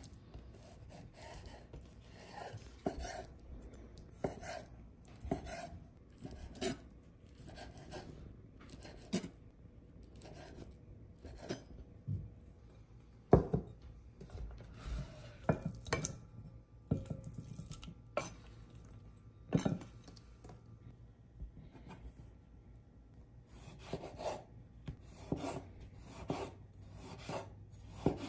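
Food preparation in a kitchen: a utensil knocks and scrapes against a board or dish in irregular taps about once a second, with a few much louder knocks.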